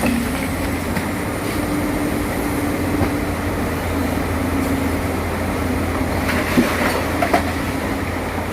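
Excavator diesel engine running steadily, with a few sharp metallic knocks about seven seconds in.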